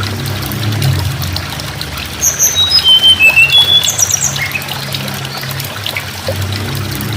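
Tledekan gunung (mountain flowerpecker) singing a short phrase of thin, high notes that step down in pitch and end in a quick trill, about two seconds in the middle. A low steady hum and a trickling-water hiss run underneath.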